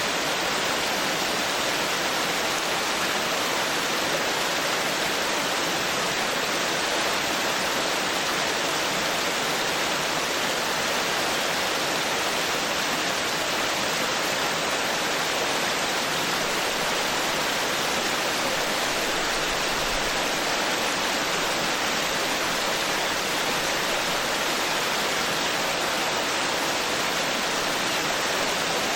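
Woodland stream babbling over rocks: a steady, even rush of running water.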